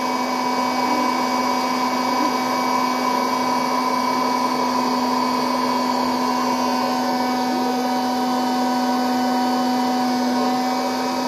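Electric hot-air popcorn maker running: its fan blows with a steady whir and a constant low hum while it heats the kernels, before any have popped.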